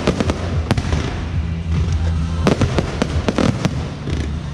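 Aerial firework shells bursting overhead: a series of sharp bangs, a few early on and a dense run of them a little past halfway, over a steady low drone.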